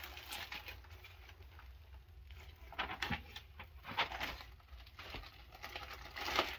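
Large clear plastic bag rustling and crinkling as it is pulled out and shaken open, in irregular bursts, the loudest near the end.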